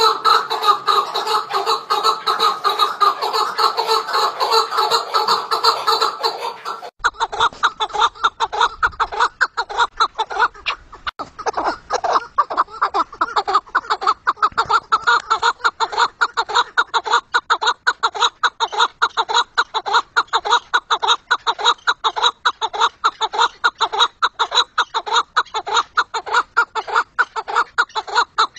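Chukar partridges calling: a fast, steady run of repeated clucking notes. About seven seconds in, the calling switches abruptly to a second recording and continues in the same rapid rhythm.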